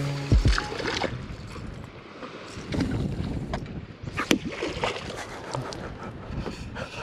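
Wind on the microphone and water noise around a small fishing boat drifting on the lake, with a few light knocks in the boat.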